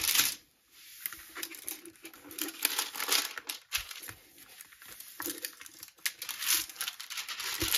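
Clear plastic protective film on a diamond painting canvas crinkling in irregular rustles as it is peeled back and smoothed flat by hand to take out its wrinkles.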